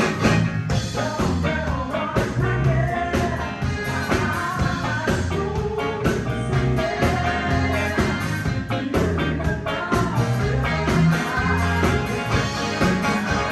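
Live band playing an upbeat rock-style song, with a steady bass and drum groove under a gliding melody line.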